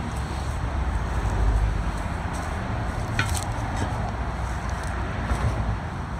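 Tire iron working the soaped bead of a large tubeless truck tire onto its steel rim: a few light clicks and a short squeak about halfway through, over a low steady rumble.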